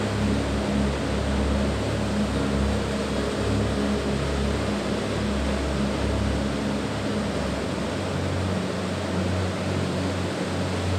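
Steady rushing roar of Linville Falls, a waterfall heard at a distance across its gorge, with a faint low hum of steady tones underneath.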